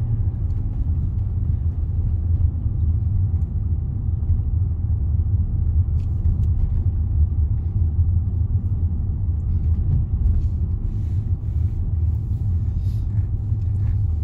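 Low steady rumble of a Range Rover driving along a lane, heard from inside the cabin: engine and tyre noise, with a few faint light ticks in the last few seconds.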